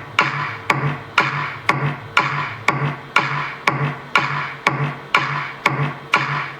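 Bass-boosted electronic music played through an Adams Digital ESK665 6.5-inch midbass car speaker for a sound test. A sharp beat lands about twice a second over a steady low bass note.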